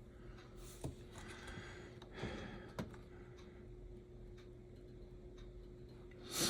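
A few faint, sharp clicks and taps of small HO scale slot car chassis parts being handled on a workbench, over a steady low hum.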